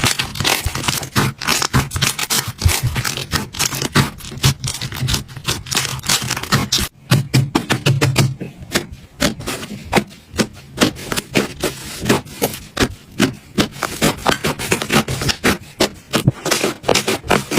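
Slime being worked by hand, giving a dense, irregular run of sticky clicks and crackles.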